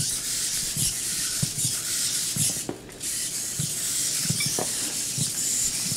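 Hexapod robot's hobby servos whirring with a high hiss as the legs move, with scattered short knocks of the legs and feet on the floor.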